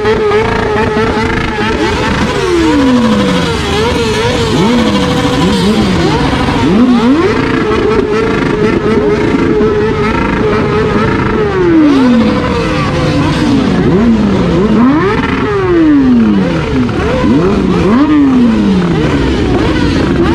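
Motorcycle engines revved hard: one is held at a high, steady pitch, then repeatedly let fall and blipped back up, while other bikes rev underneath.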